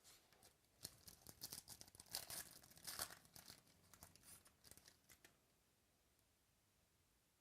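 Crinkling and tearing of a trading-card pack's wrapper as it is ripped open, a dense rustle that starts about a second in, peaks midway and stops a couple of seconds before the end.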